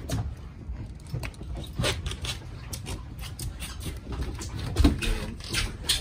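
Handling noise on a boat deck: irregular knocks, taps and rustles as a fishing rod and line are worked, the loudest knock about five seconds in, over a low wind rumble on the microphone.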